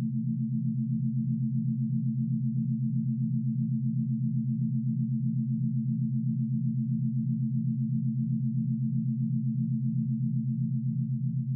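Electronic meditation tone of a few steady low sine tones held together and pulsing rapidly and evenly, several times a second, as made for pineal 'third eye' activation.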